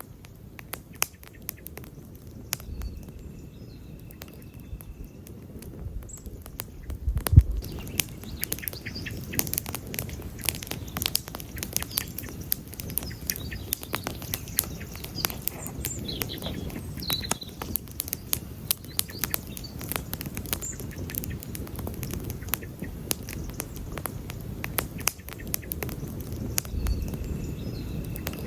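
Wood campfire crackling and popping over a low rumble of flames. The pops are sparse at first, then come thick and fast after one loud pop about seven seconds in.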